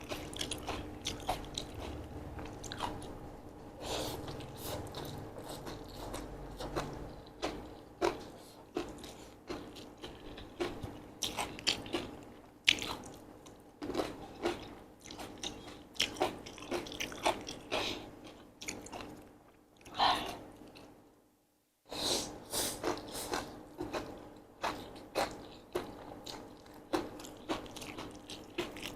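Close-miked eating of Korean sweet potato glass noodle salad: irregular wet chewing, smacking and biting sounds. It drops out to silence for about a second roughly three-quarters of the way through.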